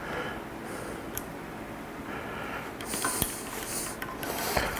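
A man breathing hard through his nose as he strains on a wrench with an Allen bit against a seized Allen-head bolt in a cast-iron engine block, with a couple of sharp metal clicks from the tool.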